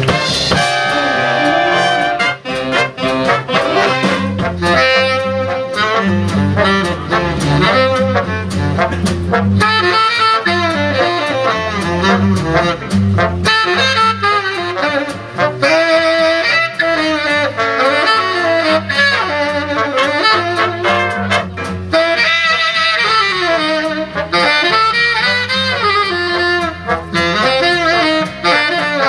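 Live jazz big band: a saxophone plays a solo over plucked double bass and the band's rhythm section, with brass joining in behind it.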